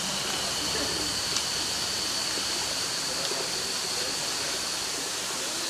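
Waterfall splashing down a rock face, a steady, even rush of falling water.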